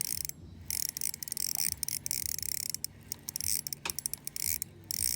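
Fishing reel being cranked while fighting a hooked smallmouth bass: a fast mechanical ticking from the reel that stops and starts.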